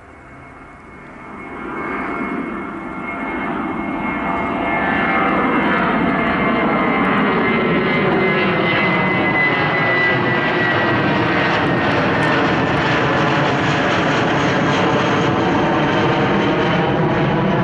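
Airbus A320 jet engines at climb thrust as the airliner passes overhead just after takeoff. The engine noise builds over the first few seconds and then holds loud and steady, with a high whine that slowly falls in pitch and a sweeping, wavering quality.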